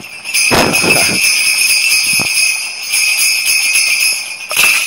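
A steady high jingling, like small bells being shaken without a break, with a couple of short rustling swells about half a second in and again near the end.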